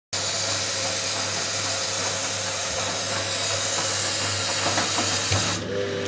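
Eudora Goldkind EU 340 front-loading washing machine in its rinse cycle: a steady hiss of water with a low hum underneath. The hiss stops abruptly shortly before the end.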